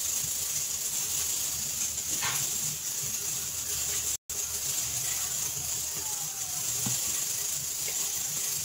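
A steady high hiss, broken by a short dropout about four seconds in. Beneath it are faint soft sounds of hands rolling and pressing bread dough on a floured counter.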